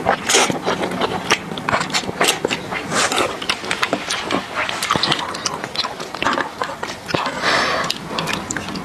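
Close-miked noodle slurping and wet chewing, with many small mouth clicks and smacks. Longer slurps come near the start, about three seconds in and near the end.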